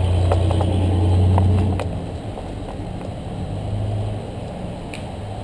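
Sport motorcycle engine idling with a low, steady rumble that drops in level about two seconds in and swells briefly again near four seconds, with a few light clicks in the first two seconds.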